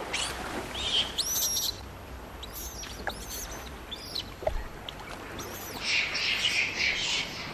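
Birds chirping: several short, high calls that sweep quickly up and down, scattered through the first few seconds over a soft background. A brief hissing patch follows near the end.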